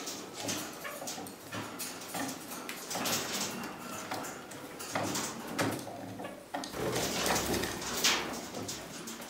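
Kakariki parakeets clambering over a wooden board: a busy run of claw scrapes and beak taps on wood, mixed with short, soft calls.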